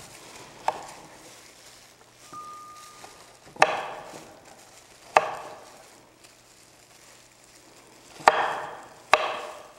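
A kitchen knife chopping carrots on a cutting board: five separate sharp knocks, unevenly spaced, with two close together near the end.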